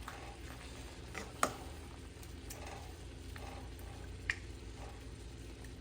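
Chicken breasts frying in oil in a pan, a light steady sizzle with a few sharp pops, the loudest about a second and a half in and again past four seconds.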